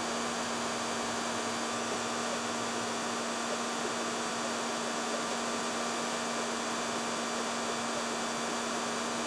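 Hair dryer running steadily: an even whooshing blow with a constant motor hum underneath, used to warm the panel so the paint doesn't crack and the metal is more pliable.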